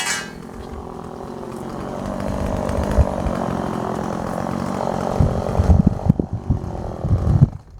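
Gas chainsaw running under load, cutting through a juniper trunk, its engine pitch wavering. Over the last few seconds a string of heavy low thumps comes before the sound drops away near the end.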